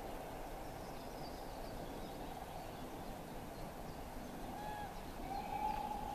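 Outdoor morning ambience: a steady low rumble with a few short bird calls, and a longer steady call or tone starting about five seconds in.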